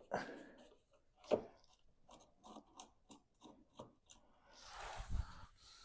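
Hand tools working on the Mini's rear wheel arch: a run of irregular small clicks and crunchy scrapes of metal and trim, with a louder knock about a second in and a longer scrape ending in a low thud near the end.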